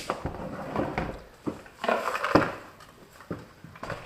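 Irregular rustling, clicks and light knocks from parts and packaging being handled, with the loudest knock a little past halfway.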